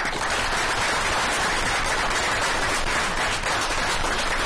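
Audience applauding: many people clapping together, a dense, steady patter that comes in at full strength all at once.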